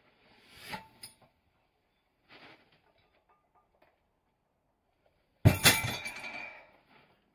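A plate-loaded Grip-topz Stub (about 21 kg of iron plates on a grip stub) is set down onto the floor about five and a half seconds in, with a loud metallic clank of the plates and ringing that fades over a second or so. Earlier, a short rising hiss of effortful breath as the weight is lifted.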